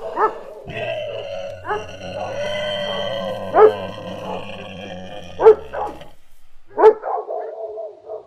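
A dog barking in single sharp barks, spaced out at first and coming faster in the last few seconds. Under the first six seconds runs a steady droning tone.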